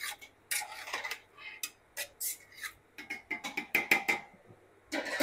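A long metal spatula scraping and clinking against the inside of a large stainless-steel pot as lentils are stirred, in irregular strokes that are loudest about four seconds in, with one more stroke near the end.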